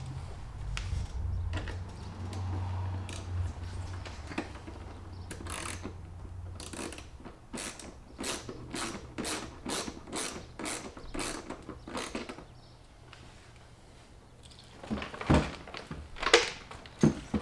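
Hand ratchet wrench clicking as it works a fitting on a plastic fuel tank, in a steady run of about two clicks a second through the middle. A few louder knocks come near the end.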